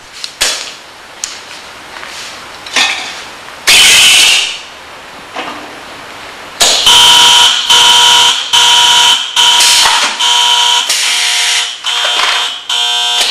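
Pneumatic can crusher cycling: sharp clicks of its air valves and cylinders, then a short loud rush of compressed air a little under 4 s in. From about halfway through, its safety buzzer sounds in a string of long beeps, a bit more than one a second.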